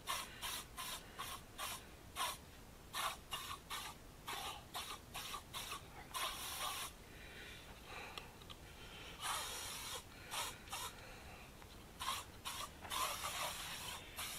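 Insect repellent sprayed against mosquitoes in many short hisses, a few a second, with a few longer sprays around the middle and near the end.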